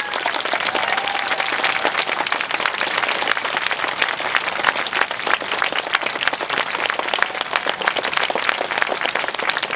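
An audience applauding: many hands clapping at once, an even dense patter of claps.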